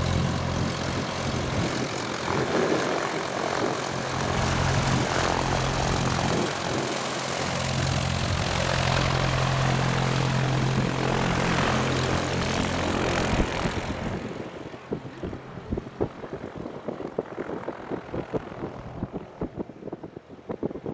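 A Cessna single-engine propeller airplane's piston engine runs at steady taxi power as it taxis past, loud and even-pitched. About two-thirds of the way through it drops sharply in loudness as the plane moves off, leaving a fainter, uneven engine sound.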